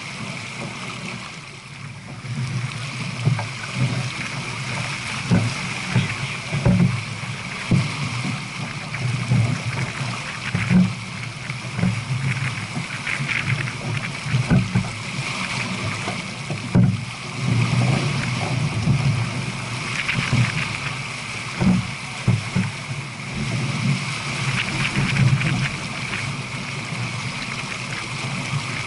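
Water rushing and splashing along the hull of a J/24 sailboat running downwind at about 7 knots, with irregular low surges from wind buffeting the microphone.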